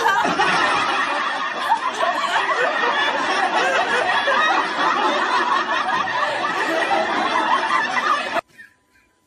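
Several people laughing loudly together, many voices overlapping, cut off abruptly near the end.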